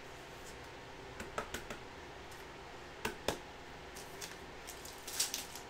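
Foil trading-card pack being handled, giving scattered crinkles and sharp clicks, then a quick cluster of crackles as it is torn open near the end.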